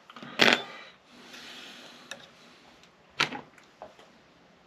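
Small hand tools being handled on a workbench cutting mat: two sharp clicks, about half a second in and about three seconds in, with a few lighter ticks and soft rustling between.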